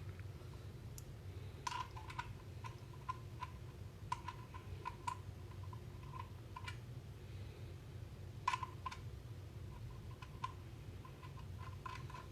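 Irregular light metallic clicks and taps, many with a short ring, from the blade nut being threaded and tightened onto the arbor of a circular saw. The loudest click comes about eight and a half seconds in.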